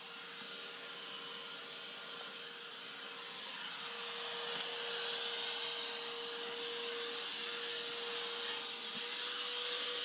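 Black & Decker BDH2000L 20-volt lithium-ion cordless hand vacuum running steadily while picking up debris from a wood floor: an airflow hiss with a constant motor whine, growing a little louder about four seconds in.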